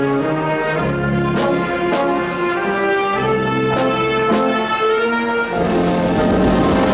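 Wind band with brass and drums playing a slow procession march: held brass chords over regular drum strikes. Near the end a rush of noise swells over the music.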